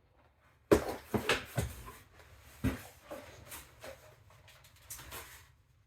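Cardboard LEGO set boxes being handled: a few sharp knocks in the first three seconds as boxes are picked up and set down, with rustling and scraping of cardboard that dies away near the end.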